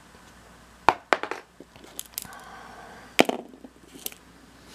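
Sharp clicks and taps of small rusty metal finds, such as fishing hooks, being handled and set down on a cardboard sheet, in several short clusters.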